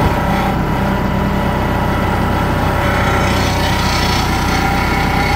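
Compact tractor's engine running steadily at a constant speed, heard from the driver's seat.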